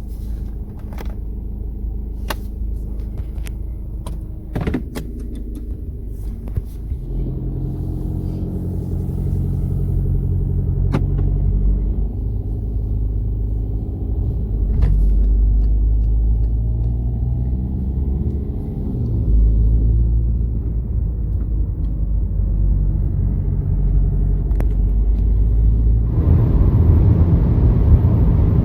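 Car engine and road rumble heard from inside a moving car, the engine note rising and dropping as it speeds up and changes gear. A few clicks and knocks come in the first several seconds.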